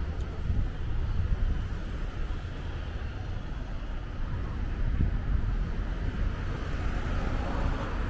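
Outdoor city street ambience: a low, uneven rumble of road traffic with wind on the microphone. A brighter hiss swells near the end.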